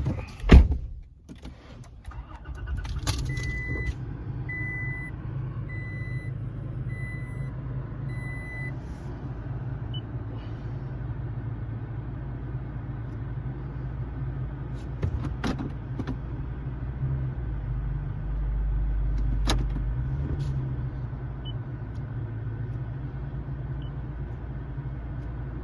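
A loud thump, then the Toyota Tacoma pickup's engine starts and runs at a steady idle. A chime beeps five times, about once a second, early on, and a few sharp clicks come later.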